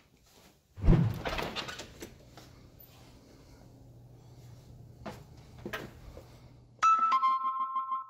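A heavy thump and rattle about a second in, as the computer case is handled while carried through a doorway, then a low hum with two light knocks. Near the end a two-note electronic chime sounds, high then a little lower, like a door chime.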